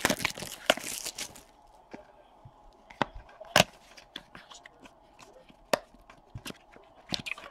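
Plastic-wrapped trading card pack being handled as it comes out of its display box: about a second and a half of crinkling and tearing of the wrapper, then a few separate light clicks and taps of fingers on the pack and box.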